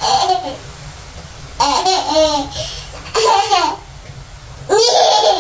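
A toddler laughing in four high-pitched bursts, about one every second and a half.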